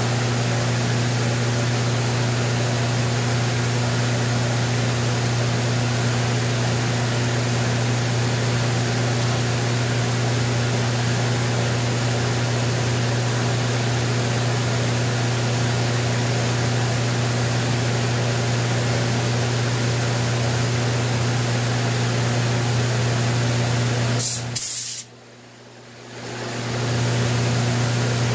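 An electric motor-driven machine running steadily with a low hum and a hiss. Near the end it cuts off for about a second after a couple of clicks, then spins back up to full speed.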